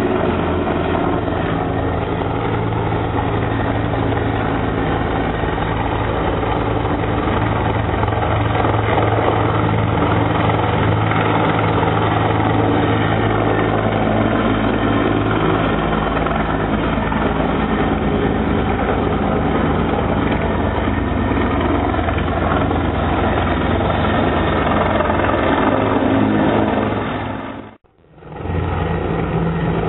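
Helicopter flying overhead, its rotor and engine running steadily throughout. About 28 seconds in, the sound cuts out for under a second, then resumes.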